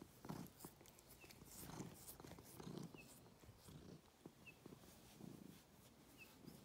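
Domestic tabby cat purring softly while being stroked, the purr swelling and fading with each breath about once a second.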